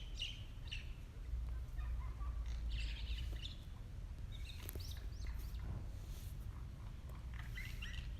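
Birds chirping: short, high calls scattered throughout, over a steady low hum.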